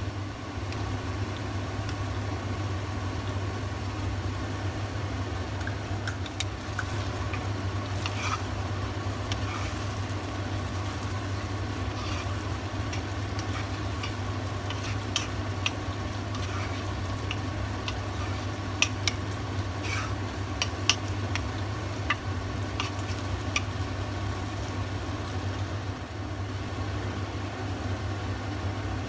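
Chopped chicken cooking in sauce in a pot with a light sizzle, while a wooden spoon stirs it, giving scattered clicks and scrapes against the pot through the middle stretch. A steady low hum runs underneath.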